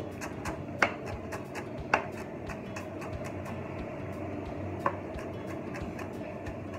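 Chef's knife finely chopping onion on a wooden chopping board: a quick run of light knife taps on the board, with three louder knocks about one, two and five seconds in.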